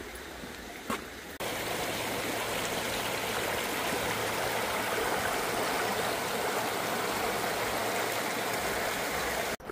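Shallow stream running over stones and gravel riffles: a steady, even rush of water. It starts suddenly about a second and a half in, after a quieter stretch with a single knock.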